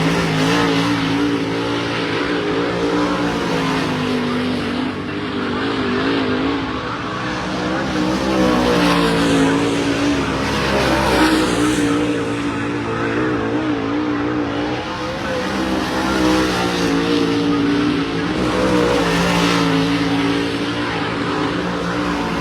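Several dirt-track race car engines running loud, their pitches rising and falling as the cars rev through the turns and pass.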